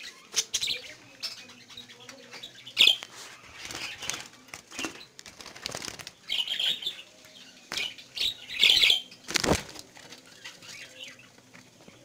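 Budgerigars chirping in short high bursts, with wing-flapping and a few sharp knocks and rustles as the cage and clay-pot nest are handled; the sharpest knock comes about three-quarters of the way through.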